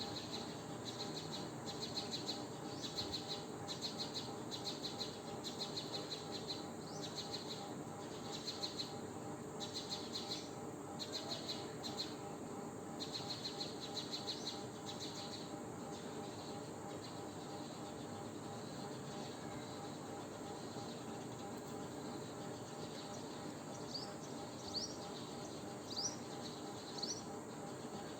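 High-pitched animal chirping in rapid trains, repeating in groups through the first half, then a few short rising chirps near the end, over a steady low hum.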